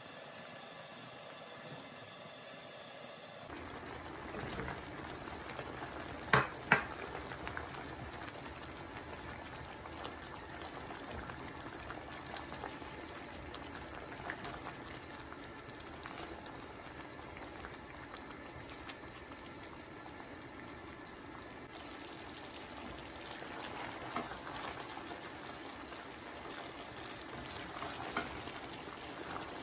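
Chicken curry simmering in a stainless steel pan while a silicone spatula stirs and scrapes through it. Two sharp knocks about six seconds in are the loudest sounds, with a few lighter knocks later.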